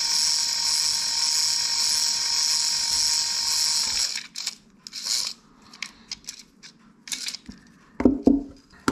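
Small electric motor of a battery-powered fishing line remover whining steadily as it draws fishing line off a spinning reel, then cutting off about four seconds in. Scattered light clicks and rustles of the line and device being handled follow, with a few soft knocks near the end.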